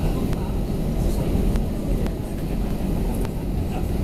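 Airbus A320-214 cabin while taxiing: steady low rumble of the CFM56-5B engines at taxi power and the wheels rolling on the pavement, with light ticks about one or two a second.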